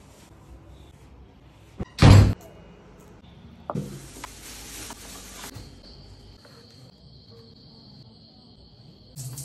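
Household knocks: a loud bang about two seconds in and a lighter knock near four seconds, then a short rush of noise. Two steady high-pitched tones start about six seconds in and carry on to the end.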